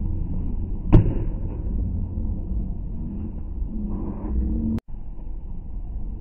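Volleyball struck hard by hand: one sharp smack about a second in, over a low, muffled rumble. A click and a brief dropout come near the end.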